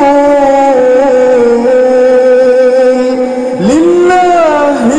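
Quran recitation in a slow, melodic style: a single voice holding long drawn-out notes, its pitch dipping and then swinging sharply up about three and a half seconds in.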